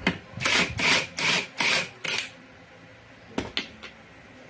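Cordless impact wrench hammering in about five short bursts on the centre nut of a Honda Scoopy's CVT drive pulley, undoing the nut. A few light clicks follow about a second later.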